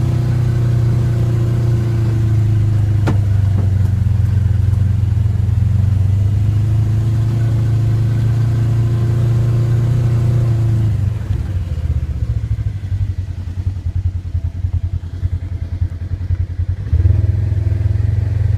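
ATV engine running steadily. About eleven seconds in it drops to a quieter, uneven putter, then picks up again near the end. A single sharp click about three seconds in.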